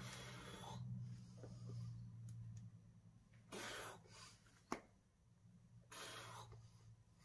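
A boulderer's sharp, forceful exhalations on hard moves: three short breaths about three seconds apart, over a faint low hum. A single sharp knock against the rock comes between the second and third breaths and is the loudest sound.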